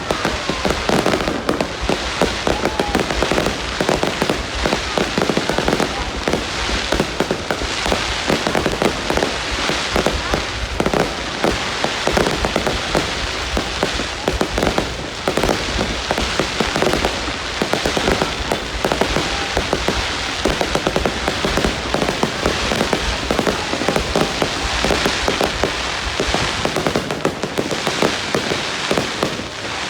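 Aerial fireworks display: a dense, continuous run of bangs and crackling bursts.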